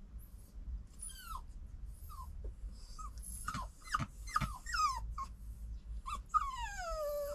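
A series of short, high animal cries, several falling in pitch, ending near the end in one long cry that slides steadily downward.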